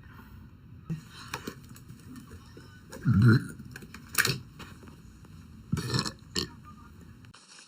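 A woman burps once loudly, a deep burp of about half a second about three seconds in. A few short, sharp knocks or clicks follow over the next few seconds.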